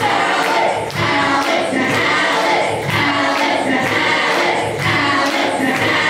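Many voices singing together in chorus over a steady beat: the loud live finish of a comedy song.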